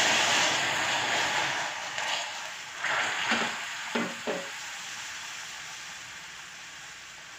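Hot dark caramel sizzling and hissing in a non-stick pan just after a splash of water is poured in to thin it, loudest at first and then fading steadily. A silicone spatula stirs through it, with a few short stirring strokes a little past the middle.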